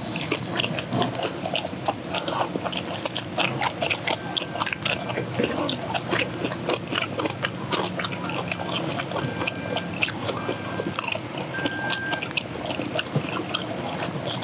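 Close-miked chewing of crisp kimchi by several people, with a steady run of wet, crunchy bites and chews.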